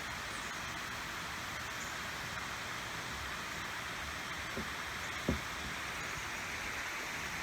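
Steady rush of river water pouring over a dam. A short, dull thump about five seconds in.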